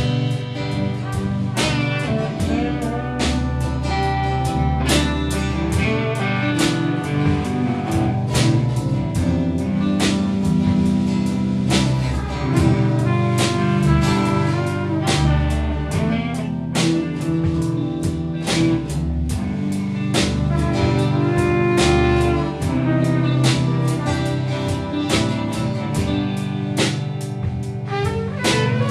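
Improvised band music with guitar over a drum kit keeping a steady beat.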